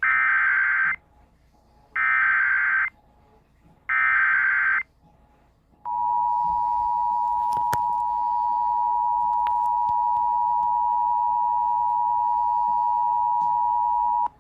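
Emergency Alert System SAME header: three one-second bursts of data tones about a second apart, followed by the EAS two-tone attention signal (853 and 960 Hz together) held steady for about eight and a half seconds. Together they mark the start of an emergency alert broadcast, here a severe thunderstorm warning.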